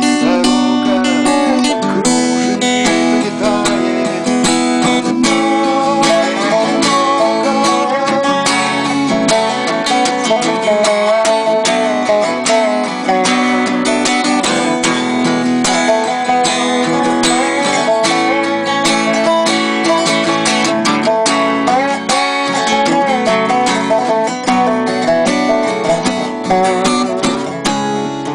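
Acoustic guitar picked fingerstyle under a Dobro resonator slide guitar, whose notes slide and waver in pitch, playing an instrumental improvisation without singing.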